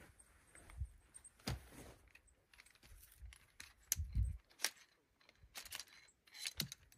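A hiker's irregular footsteps, with small clinks and rattles of carried gear. The loudest thump and clink come about four seconds in.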